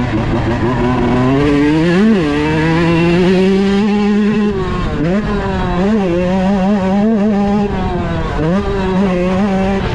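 Yamaha YZ125 single-cylinder two-stroke dirt bike engine ridden hard at high revs. Its pitch climbs over the first two seconds, then holds high with a series of brief dips and quick recoveries, about once a second in the second half.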